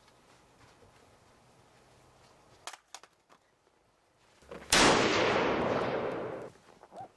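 A few faint clicks, then a sudden loud blast a little past halfway, its hissing tail dying away over about two seconds.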